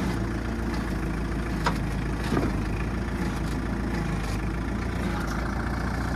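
A tractor's diesel engine idling steadily, with two short metallic clicks a little under a second apart about two seconds in.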